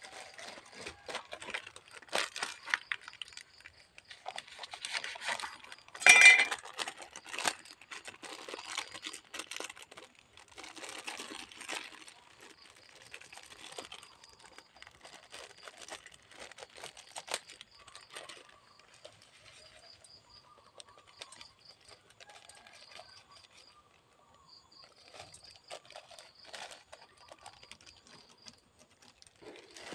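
Plastic bags crinkling and rustling in the hand as seasonings are handled and sprinkled into a pot, with scattered small knocks and one sharp, louder clatter about six seconds in. It grows quieter in the second half.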